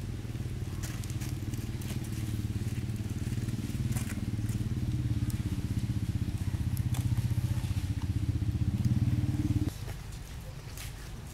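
A motor engine running steadily with a low hum, growing louder and then cutting off abruptly near the end, with faint crackles scattered over it.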